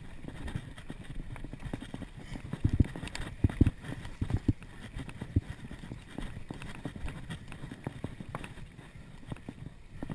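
Mountain bike riding fast down a dirt trail: the frame and chain rattle steadily over the rough ground, with a run of hard knocks a little before the middle.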